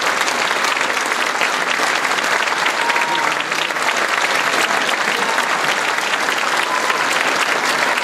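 A large audience applauding steadily, with dense, continuous clapping.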